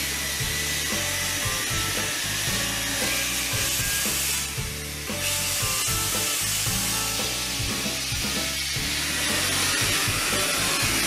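Steam hissing and sizzling steadily from around the cylinders of a standing steam tank locomotive, with background music over it.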